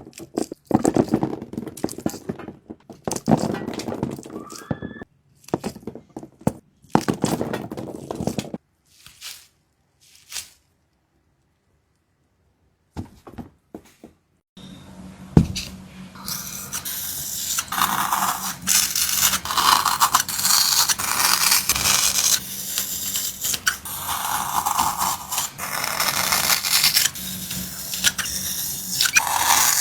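Scraping and rasping handling sounds, in short separate strokes at first, then a few seconds of near silence from about nine seconds in. From about fifteen seconds in comes a single knock, then continuous scraping.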